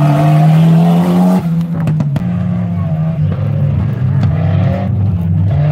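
Off-road racing pickup truck's engine revving hard as it passes close by, its pitch rising, then breaking off sharply about a second and a half in and carrying on lower and unsteadier, with a few sharp clicks; near the end the engine note climbs again.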